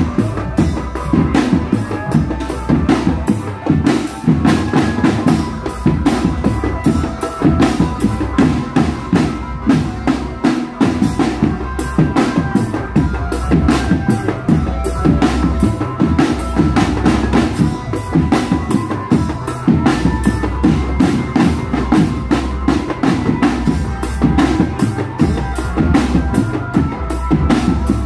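Marching drum band of snare drums and bass drums playing a fast, steady parade rhythm, with a tune carried over the drums.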